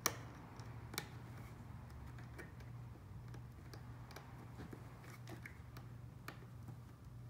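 Small plastic clicks and taps as wire connectors are pushed into the white header sockets on a circuit board. The sharpest click comes at the very start and another about a second in, then fainter scattered ticks follow, over a low steady hum.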